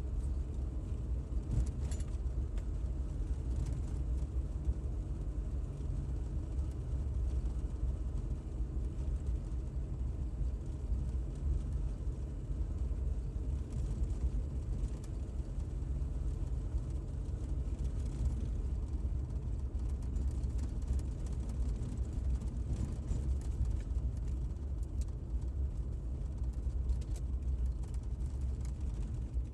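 Car driving along a paved street, heard from inside the cabin: a steady low rumble of engine and tyres, with a few faint clicks and rattles.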